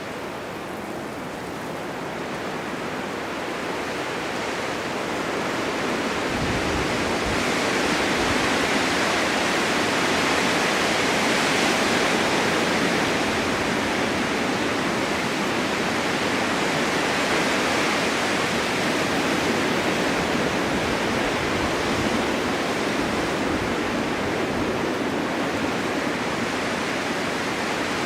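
Blizzard wind blowing snow: a steady rushing hiss that swells over the first ten seconds or so, then holds, with low gusty rumbles partway through.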